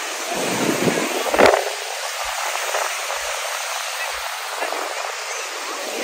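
Surf breaking and washing up a sandy shore, with the distant voices of a crowd of bathers; one brief louder sound stands out about a second and a half in.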